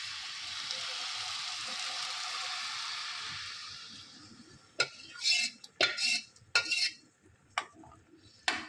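Kadhi batter of yogurt and chickpea flour hitting hot oil tempering in a stainless-steel pan, sizzling steadily and dying away after about three and a half seconds as the batter covers the oil. Then a steel ladle stirs it, with a handful of sharp scrapes and knocks against the pan.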